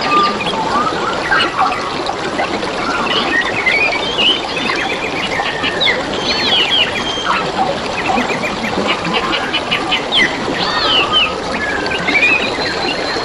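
Several wild birds chirping, trilling and whistling in quick, overlapping calls over the steady sound of water trickling and babbling.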